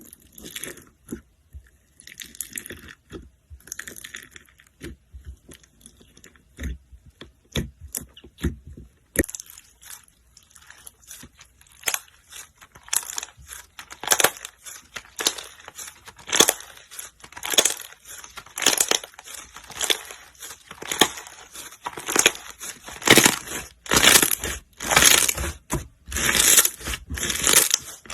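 Slime being squeezed and pressed by hand, giving sharp clicks and pops. Scattered at first, they become from about nine seconds in a steady run of crackling squeezes, roughly one a second, growing louder.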